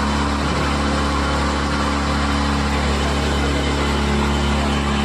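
Motorboat engine running at a steady speed while the boat cruises: a constant low hum with a steady rushing noise over it.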